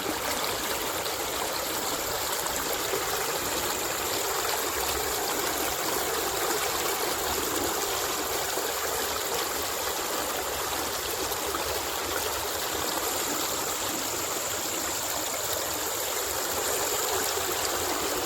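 Flowing river water running steadily, an even rushing sound with no break.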